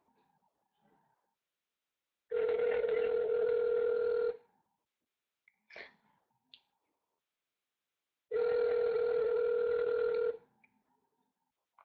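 Telephone ringback tone played through a mobile phone's speakerphone: two rings, each about two seconds long with about four seconds of gap between them, while the outgoing call waits to be answered. A faint click comes between the rings.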